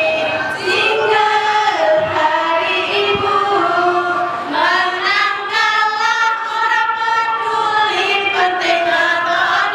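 A group of women singing a jingle together, with several voices on one melody and long held notes in the middle.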